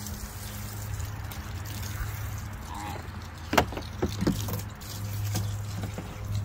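Garden hose water spraying and splashing on a plastic tote lid and into grass, over a steady low hum. One sharp plastic knock about three and a half seconds in, with a few smaller knocks after it, as the lid is set down.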